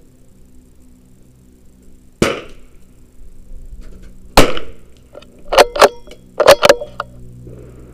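Two .22 rimfire rifle shots about two seconds apart, each with a short echo trailing off. They are followed by four sharp metallic clicks in two quick pairs as the bolt is worked.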